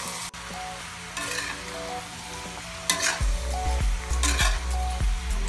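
Chicken legs and wings sizzling in oil in a honeycomb stainless-steel wok, then a metal spoon stirring them, clattering and scraping against the wok from about three seconds in.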